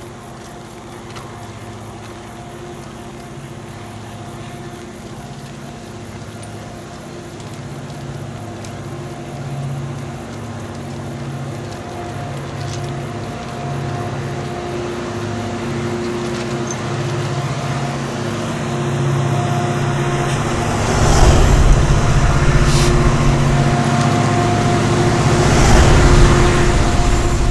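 Two KAI CC 205 diesel locomotives hauling a loaded coal train approach, the steady drone of their engines growing louder and louder. Near the end, as the lead locomotive comes close, heavy low rumbling swells in twice.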